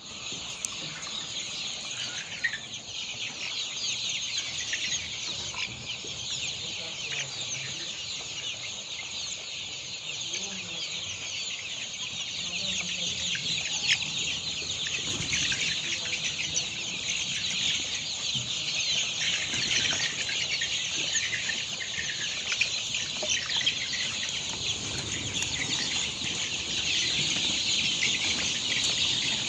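A large flock of chickens calling all at once: a continuous, dense chorus of high-pitched cheeping and clucking.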